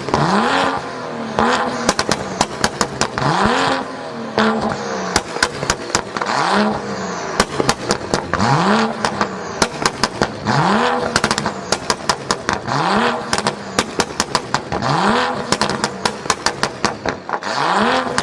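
BMW 435i turbocharged straight-six through an Armytrix valved aftermarket exhaust, revved about every two seconds: each rev climbs quickly and falls back, and sharp pops and crackles fire from the exhaust as the revs drop.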